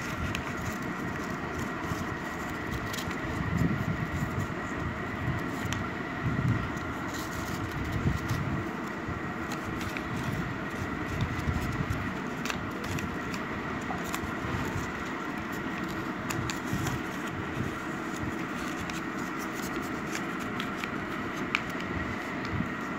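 Steady background hum with a faint high whine, over which come soft crinkles and rustles of origami paper being creased and folded by hand, with a few dull bumps against the tile floor.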